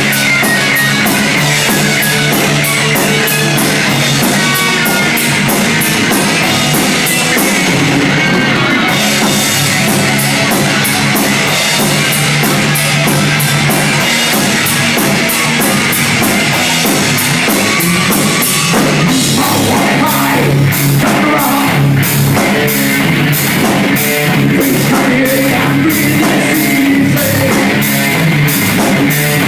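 Heavy metal band playing live: loud guitars and a drum kit with fast, even cymbal and drum hits. About two-thirds of the way through, the drum pattern changes to broader, more widely spaced strokes.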